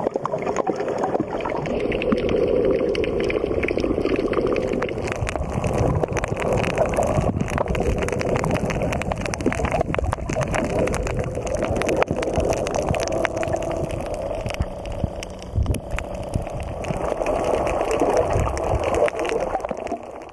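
Muffled underwater sound picked up by a camera under water: water gurgling and sloshing around it, with many small clicks throughout, cutting off abruptly at the end.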